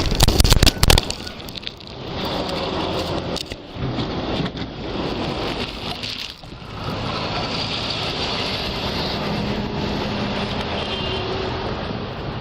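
Steady road-vehicle noise with faint engine tones, with heavy wind rumble on the microphone in the first second.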